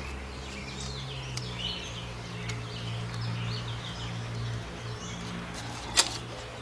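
Birds chirping over a steady low hum, with one sharp click near the end.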